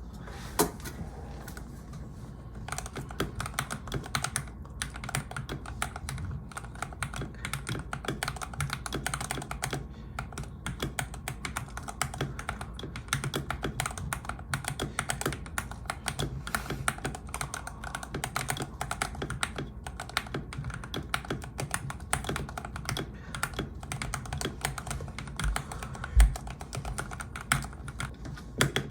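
Typing sound test on a Wormier K87 mechanical keyboard fitted with lubed Everglide Aqua King linear switches and tape- and foam-modded: a steady run of fast keystrokes. The typing starts about two and a half seconds in, and there is a single louder knock near the end.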